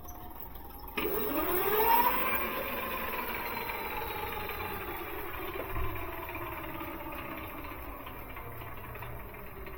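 E-bike geared hub motor spun up, its whine rising sharply about a second in, then slowly falling in pitch and fading as the wheel runs down. Under the whine is a rough grinding noise, the sign of a worn-out planetary gear bearing inside the hub.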